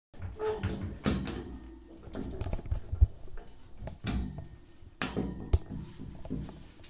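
Knocks, clicks and scraping of metal and plastic parts as a towel radiator is fitted back onto its wall brackets. There are several sharp knocks, the loudest about three and five and a half seconds in.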